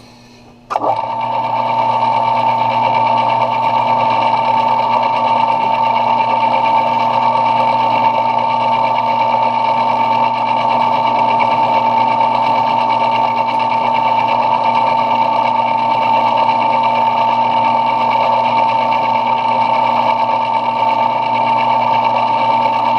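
Metal lathe switched on about a second in, then running steadily with a high whine.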